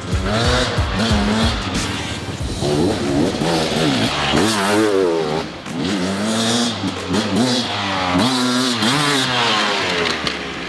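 Two-stroke Beta RR Racing enduro bike engine being ridden hard, its revs climbing and dropping again and again as the rider works the throttle.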